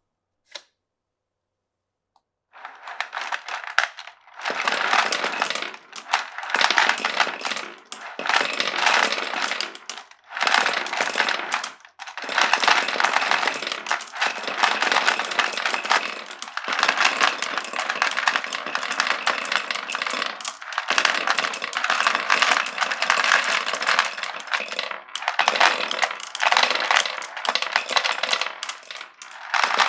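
Glass marbles rolling and clattering down a wooden marble run, a dense rattle that starts about two and a half seconds in and goes on in runs of one to two seconds with short pauses between them. Before that there is a single click.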